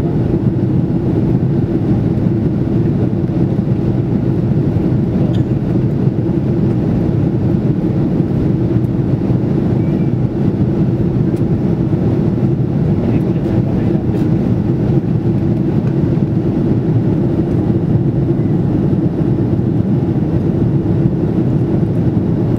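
Steady, unchanging cabin noise inside an Airbus A330-300 airliner: the low, even roar of the engines and airflow heard from a seat near the rear of the cabin.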